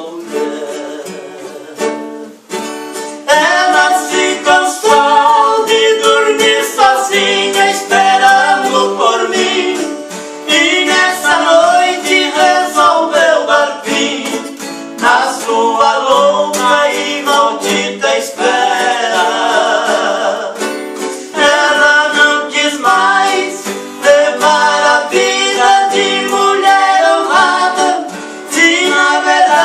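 Sertanejo song: singing over plucked string instruments.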